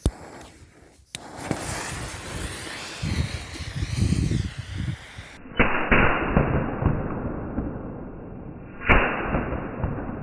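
Weco 32 Machine Gun firework going off: a hissing run of rapid pops, with sharp louder bangs about halfway through and again near the end.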